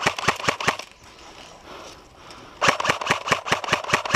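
Airsoft guns firing in rapid strings of sharp shots, about six a second, stopping about a second in and starting again about two and a half seconds in.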